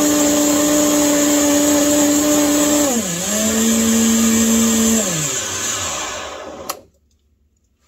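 Vitamix blender running at high speed, blending a fruit smoothie. About three seconds in, the motor's pitch drops as the speed dial is turned down. Then it is switched off and the motor winds down to a stop, ending with a click.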